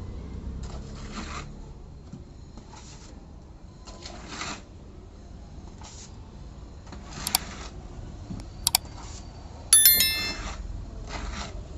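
Repeated scraping strokes of a metal blade working texture plaster, about one a second. Two sharp taps come late, then a loud ringing metallic clink near the end.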